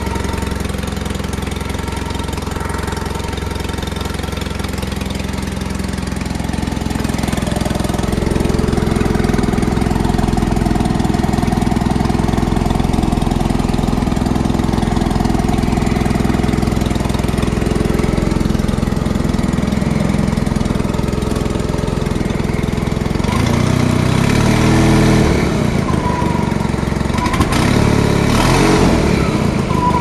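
Honda engine running steadily, heard up close from under the hood, getting a little louder about eight seconds in. Near the end it turns rougher and louder for several seconds.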